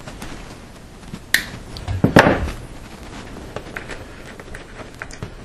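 Hand-work noises from lacing a cable bundle with waxed twine. A sharp click comes about a second in and a louder clunk about two seconds in, then a few light ticks.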